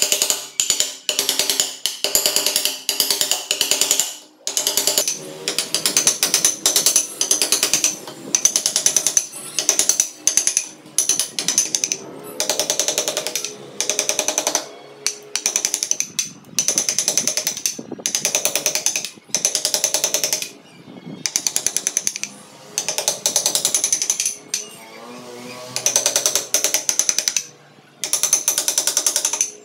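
Wooden mallet tapping a steel carving chisel into wood in quick runs of light blows, several a second, with brief pauses between runs as the chisel is repositioned.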